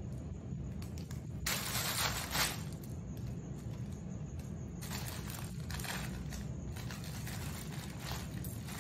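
Crinkling, scraping rustles as a skunk rummages and pushes plush toys about on a woven mat: a spell of about a second, then a longer one of several seconds, over a steady low hum.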